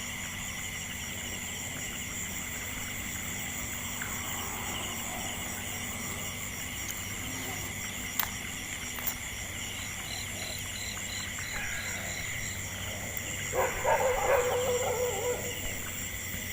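Night chorus of frogs and insects, a steady shrill ringing with a pulsed call joining about two-thirds of the way in. Near the end, dogs howl for about two seconds.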